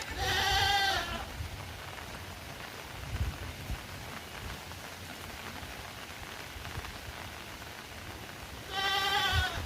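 Steady rain, with a farm animal bleating twice: a quavering bleat of about a second right at the start, and another near the end.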